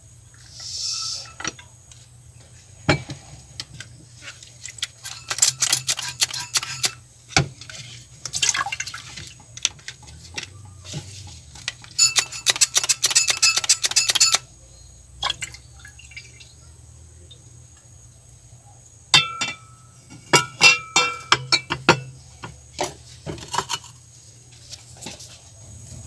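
Filtered gold-bearing aqua regia solution poured from one glass beaker into a larger glass beaker, splashing and trickling in four spells, with light clinks of glass.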